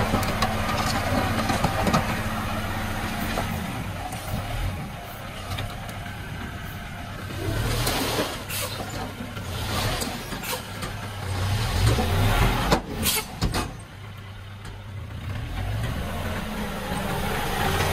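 Small diesel dump truck's engine running as its hydraulic tipper holds the bed raised and the load of soil slides out. A few short, sharp sounds come about two-thirds of the way through.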